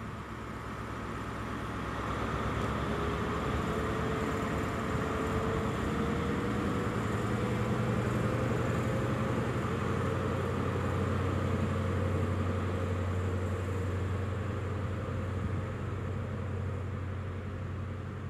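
Diesel engine of a Class 43 HST power car working under power as the train moves along the platform. A steady low engine drone sits under a whine that rises in pitch over the first several seconds and then holds. The sound grows louder over the first couple of seconds and eases slightly near the end.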